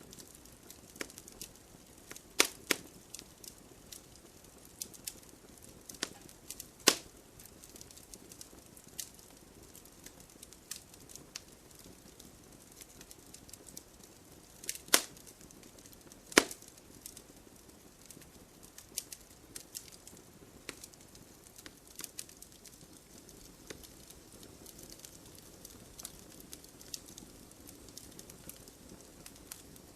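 Wood fire burning: irregular crackling of burning logs over a soft steady hiss, with a few sharp, much louder pops scattered through.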